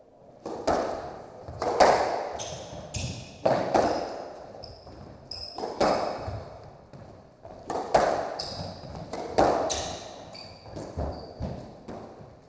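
A squash rally: sharp cracks of the ball off racket strings and the walls, one every second or two, ringing in the echoing court. Short high squeaks of court shoes on the wooden floor come between the shots.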